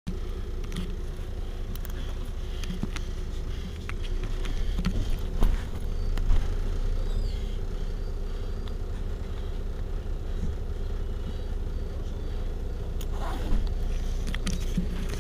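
Iveco Urbanway 12 city bus idling at a standstill: a steady low engine hum, with two short knocks near the middle.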